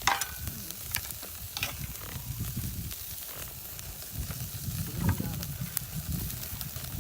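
Meat sizzling on a charcoal grill, with a low rumble under the hiss and a few sharp metallic clinks, the first just after the start with a brief ring.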